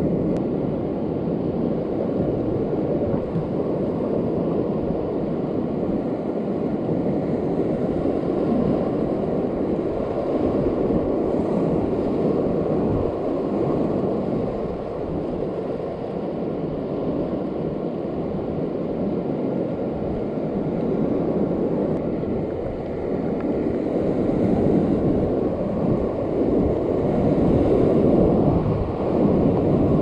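Whitewater rapids rushing and churning around an inflatable raft, a steady loud rush of water.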